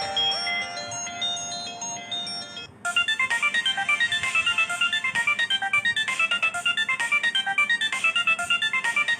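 Nokia Asha 303 ringtones playing. One melody ends on a held note, and about three seconds in a new, faster ringtone starts with a quick, even run of short notes.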